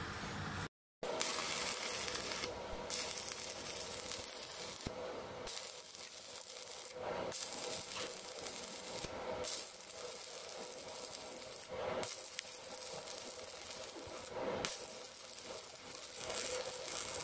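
Electric arc welding on a cracked steel truck axle housing: the arc crackles and sizzles steadily, with several brief breaks.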